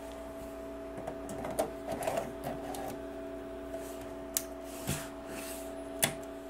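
Clicks, knocks and rattles of a hot-swap hard drive caddy being unlatched and slid out of a Dell PowerEdge R710's front drive bay, over a steady hum; the sharpest click comes about six seconds in.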